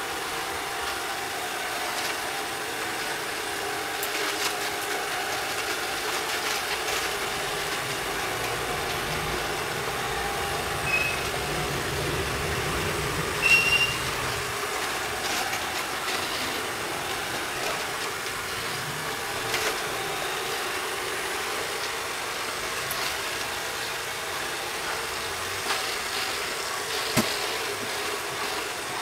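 ILIFE V7S robot vacuum running on a hard wooden floor, a steady whir of its motor and brushes picking up scattered rolled oats and powder, with occasional clicks and a knock near the end. Two short high beeps sound near the middle.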